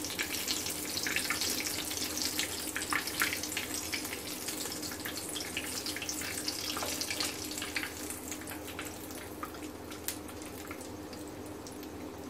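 Hot oil sizzling and crackling around a breaded potato-cheese finger shallow-frying in a frying pan. The pops are dense at first and thin out after about eight seconds, and the sizzle grows a little quieter.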